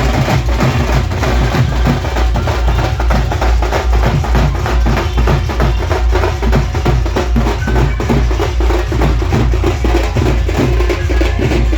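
Loud DJ music with a steady, heavy bass beat and percussion.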